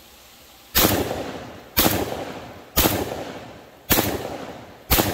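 12-gauge shotgun fired five times in quick succession, about a second apart. Each shot is a sharp blast that rings off into a fading echo.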